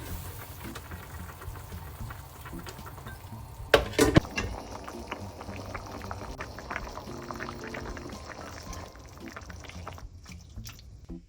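Liquid bubbling steadily in a cooking pot at the boil, with two loud knocks about four seconds in, and the bubbling dropping away near the end.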